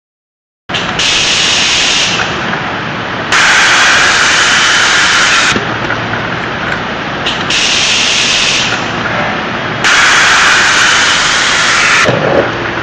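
CNC spring-forming machine running, a loud hissing whir that starts under a second in and swells and drops back in turn every two to four seconds.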